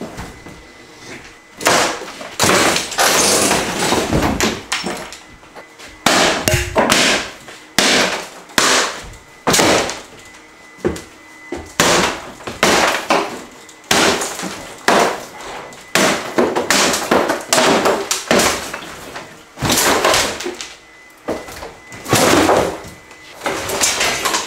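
Loud bangs, cracks and scraping as old kitchen cabinets and a laminate countertop are torn out by hand and broken apart, the wooden pieces crashing onto the floor, roughly one crash a second.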